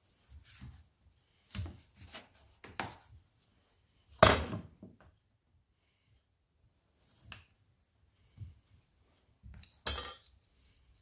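Irregular knocks and clinks of hand work, tools and small parts being handled and set down, with the loudest clatter about four seconds in and another near the end.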